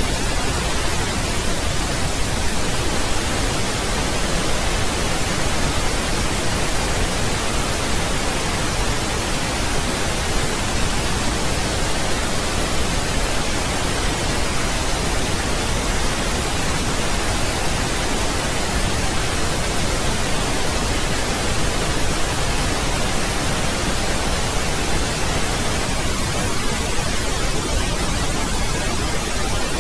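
Steady pink noise: an even, unbroken hiss spread across low and high pitches alike, with no change in level.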